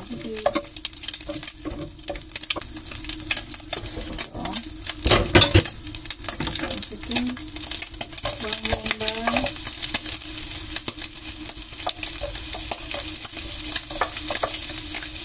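Hot cooking oil sizzling and crackling in a nonstick frying pan while a wooden spatula scrapes scrambled egg out of it, with a loud knock about five seconds in. Sliced onions are then tipped into the hot oil and keep sizzling.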